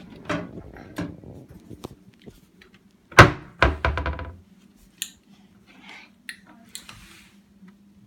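Knocks and clatter of a wooden kitchen cabinet door and dishes being handled. One loud thunk comes about three seconds in, followed at once by a ringing clatter lasting about a second, with lighter knocks and clicks before and after.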